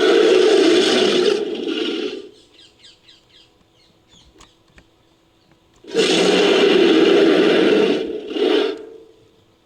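Designed giant-ape (Gigantopithecus) roar sound effect, layered from King Kong and stock monster sounds: a loud roar that dies away about two seconds in, a few seconds of quieter short clicking chatter, then a second loud roar about six seconds in that ends with a short final burst.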